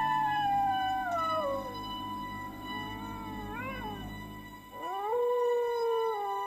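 Dog howling. A long howl falls slowly in pitch, a short wavering cry follows about three and a half seconds in, and a second howl rises about five seconds in and is held.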